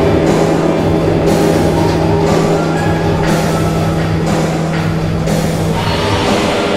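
Loud rock music with a drum kit and guitar over a steady low held note that drops out near the end.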